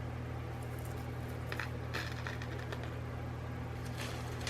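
Small plastic bags of beads being handled: crinkling and light clicking in short clusters, over a steady low hum.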